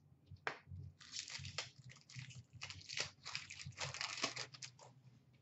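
Foil trading-card pack wrapper crinkling and tearing as it is ripped open by hand, after one short click. The crinkling runs from about a second in to near the end.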